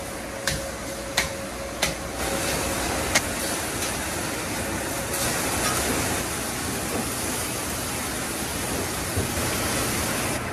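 Meat and cheese-topped patties sizzling on a hot flat-top griddle: a steady hiss that grows brighter about halfway through, with a few sharp metal clacks of a spatula on the griddle in the first three seconds. The hiss cuts off abruptly near the end.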